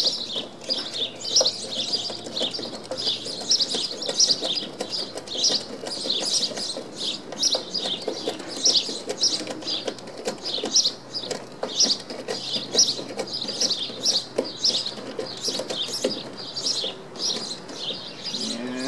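Small songbirds chirping over and over, a few calls a second, with faint irregular clicks and creaks of a hand screwdriver driving screws into the wooden gunwale underneath.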